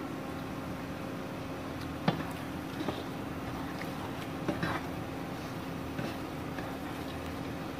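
Wooden spatula stirring and scraping a thick chicken mince filling around a non-stick frying pan, with scattered knocks of the spatula on the pan, the sharpest about two seconds in. A steady low hum runs underneath.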